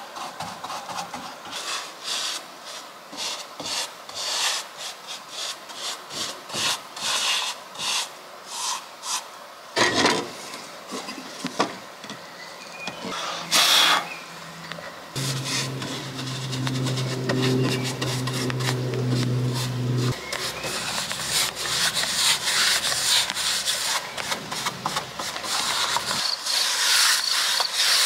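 Wood being worked by hand in repeated rubbing strokes, about two a second. A couple of sharp knocks follow, then a steady low hum for about five seconds, then a continuous rasping hiss.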